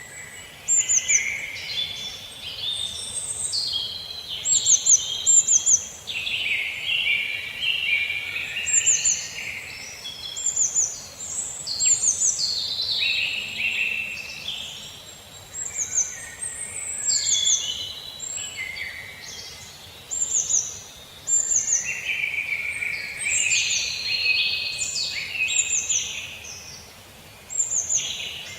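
Several birds singing and calling together. Short runs of two to four high, quickly falling notes repeat every second or two over busier, lower warbling and chattering.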